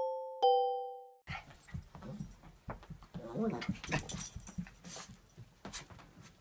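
A chime-like note rings and fades out in the first second. Then a dog whimpers faintly, with a few light taps and scuffs.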